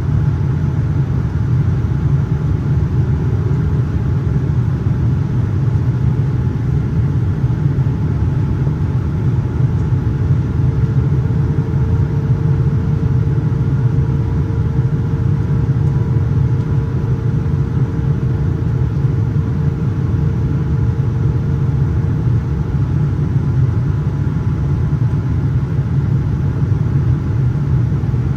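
Steady low cabin drone of a Boeing 787-9 airliner in flight, engine and airflow noise heard from inside the passenger cabin. A faint steady hum rises out of it about a third of the way in and fades after about ten seconds.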